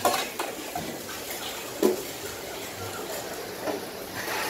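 Metal ladle and spoon clinking and scraping against a steel pot of sambal, a few sharp clinks with the loudest about two seconds in, over a steady background hiss.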